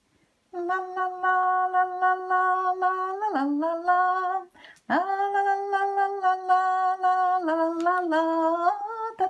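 A woman singing a slow tune without clear words, in long held notes that step up and down in pitch, with a short break about halfway through.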